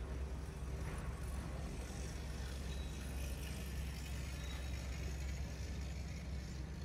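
Steady low street rumble of city background noise, with no distinct event standing out.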